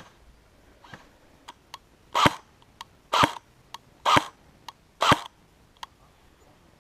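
Airsoft gun fired four single shots about a second apart, with fainter sharp clicks in between.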